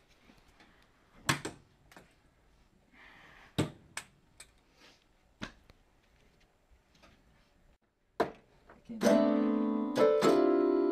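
A few scattered knocks, then an electronic keyboard played in loud sustained chords from about nine seconds in, with a second chord about a second later.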